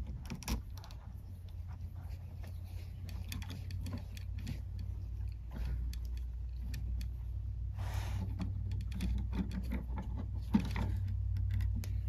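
Small clicks and scraping of stiff electrical wires and a plastic wire nut being handled and twisted on to join a dimmer switch's red lead to a black house wire, over a steady low hum.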